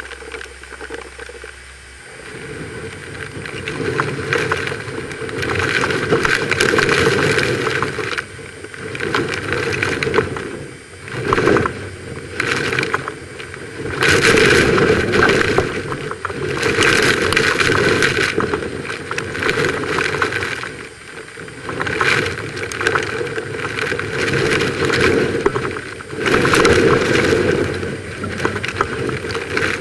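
Hurricane-force wind and driving rain, the noise surging and easing in strong gusts every few seconds.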